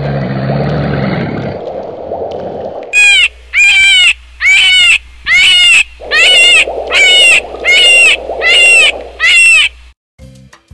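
Jungle animal call sound effects: a low, noisy growl for the first few seconds, then about ten loud, short calls in quick succession, each rising and falling in pitch.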